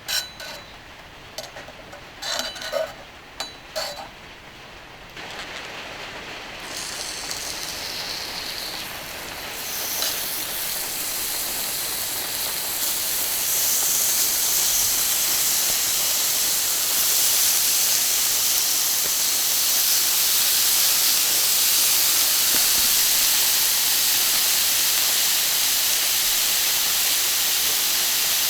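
A few clinks of utensils, then meat starting to sizzle on a hot iron griddle. The sizzle builds in steps over the next several seconds, as if pieces are being added, and then holds at a steady loud hiss.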